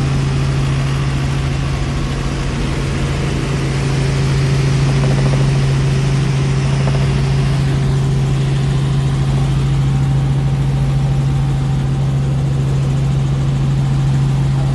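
Helicopter in flight heard from inside the cabin: the engine and rotor make a loud, steady drone with a strong deep hum that does not change.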